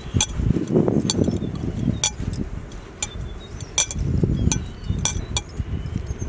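Hands mixing and squeezing wheat flour into mashed potato in a glass bowl, a dull rubbing and squelching, with bangles on the wrist clinking sharply again and again against each other and the bowl.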